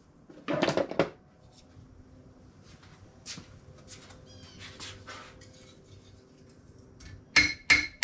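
Metal pieces clattering on a workbench about half a second in, then scattered light taps and clicks. Near the end a hammer starts striking steel, sharp ringing blows about three a second, flattening the sheet-steel fender patch piece.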